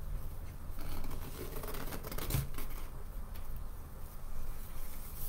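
Rustling and scraping of burlap and fabric ribbon being pulled and looped onto a wooden-dowel bow maker, over a low steady hum.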